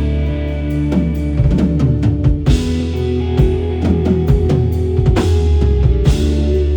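A live rock band playing an instrumental passage: drum kit and bass under electric guitar. Twice, a run of notes slides down in pitch.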